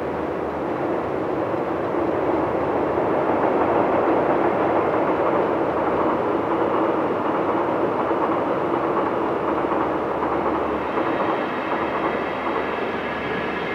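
Freight train hauled by EF64 electric locomotives running past: a steady rumble of wheels on rail that swells over the first few seconds and then holds. A faint high squeal joins near the end.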